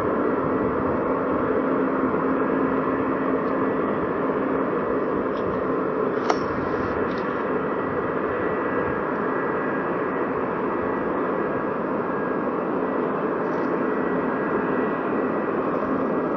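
Airbus A380's jet engines running steadily as it taxis past: a constant rumble with a steady low hum and a thin high whine. A single sharp click sounds about six seconds in.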